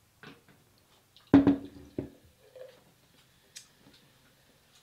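Two knocks about two-thirds of a second apart, the first louder, with only faint small clicks around them.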